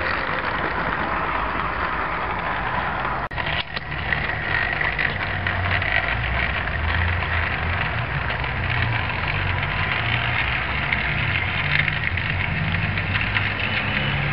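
Model train running along garden-railway track, its wheels and carriages clattering and rattling steadily, with a brief dip about three seconds in.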